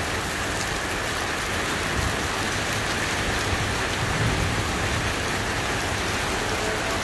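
Heavy rain falling steadily on pavement and parked cars, a constant even hiss.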